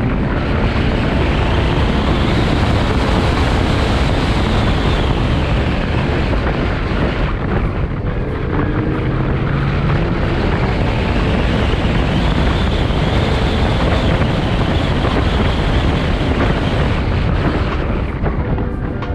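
Heavy wind rushing over the microphone of a fast-moving car, with a faint engine note rising and falling beneath it about halfway through.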